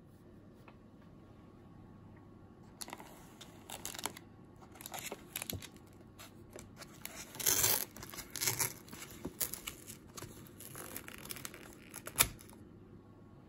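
Foil-lined paper lid of an instant ramen cup being peeled back and torn off: irregular crinkling and tearing rustles that start about three seconds in, are loudest in the middle, and end with one sharp crackle near the end.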